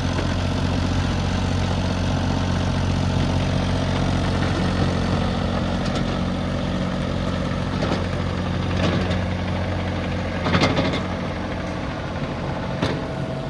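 Kubota KX033-4 mini excavator's three-cylinder diesel engine idling steadily. A few short clanks sound in the second half, the loudest a double knock about ten and a half seconds in.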